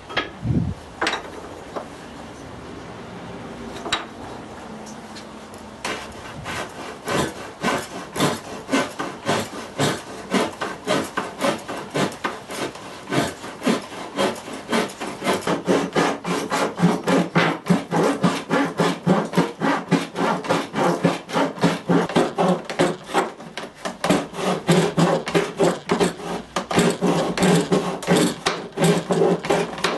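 A pedal-driven Japanese ryoba saw blade reciprocating through wood in rapid rasping strokes. The strokes begin about six seconds in and grow faster and louder, after a few knocks at the start.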